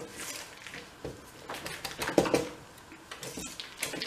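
A spoon stirring and scraping thick cream cheese in a stainless steel mixing bowl, with irregular scrapes and knocks against the metal, loudest a little past halfway. This is the creaming of cream cheese with sugar and spices for a cheesecake filling.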